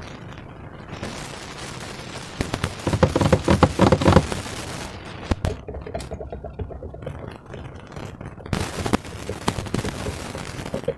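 Slime being squeezed and stretched by hand, giving runs of wet crackling and popping, densest and loudest a few seconds in.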